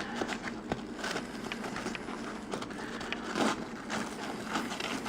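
Nylon webbing and pack fabric being handled: irregular rustling, scraping and small clicks as a MOLLE sheath strap is worked onto a backpack's PALS webbing, with a slightly louder scrape a little past the middle.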